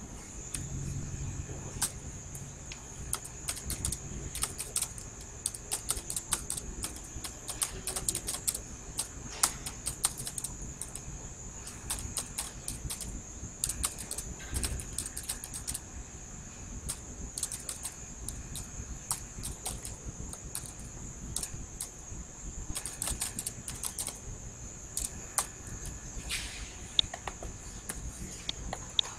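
Typing on a computer keyboard: irregular runs of key clicks with short pauses, over a steady high-pitched hiss.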